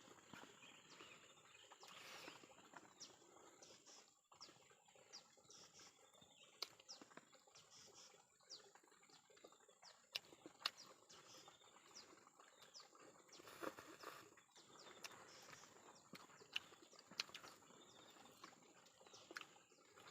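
Near silence, with faint short clicks and chirps scattered through.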